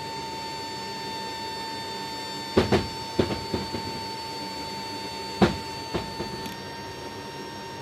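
Sharp clicks of toggle switches being worked on an MC-130J's cargo-compartment control panel, two of them loud and several smaller, over the aircraft's steady high-pitched whine.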